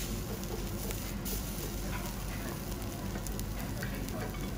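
Thin slice of Wagyu beef sizzling on a wire-mesh grill over a charcoal fire, with small crackles and pops of fat. A steady low hum runs underneath.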